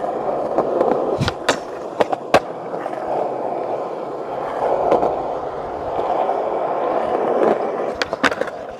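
Skateboard wheels rolling steadily over rough old tennis-court asphalt, with a few sharp clacks in the first couple of seconds. Near the end comes a quick cluster of sharp knocks as the board pops up onto a ledge.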